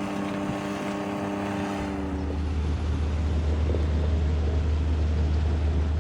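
Vehicle engine running steadily: an even pitched hum, with a deep low drone that strengthens about two seconds in.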